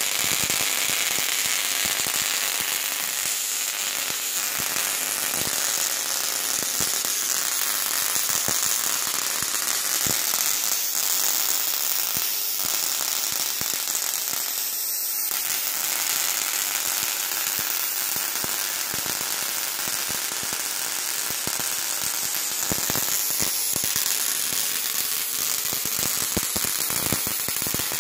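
Spark-gap Tesla coil fed from a 12-volt supply, running with a steady, dense crackle as its arc discharges.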